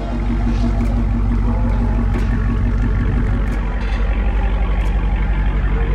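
Supercharged 6.2-litre Hemi V8 of a 2020 Dodge Charger Hellcat running steadily at a low, even speed, with a deep pulsing exhaust note.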